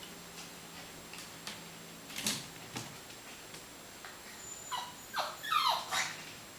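American Eskimo puppy climbing out of a plastic wire basket, with a couple of sharp knocks about two seconds in, then giving a few short high-pitched yips that fall in pitch near the end.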